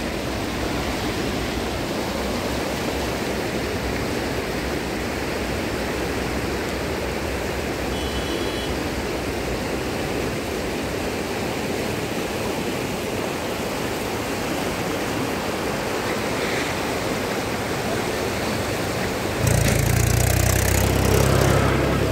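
Rushing floodwater of a swollen river churning past, a steady noise. Near the end a louder low rumble comes in over it.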